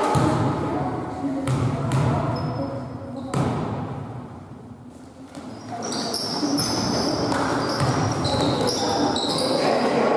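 Basketball game echoing in a sports hall: the ball bouncing on the court, sneakers giving short high squeaks, and indistinct shouts from players and spectators. The hall goes quieter for a moment about four seconds in, then picks up again.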